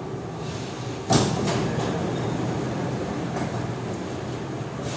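Steady hum inside a Kawasaki–CRRC Sifang CT251 metro train car standing at a station, with a sudden loud knock about a second in followed by a few lighter clatters.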